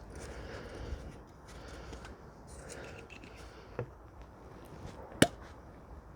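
Two sharp clicks from parts being handled while the engine flush is added to the engine, the second near the end much louder, over a low steady rumble.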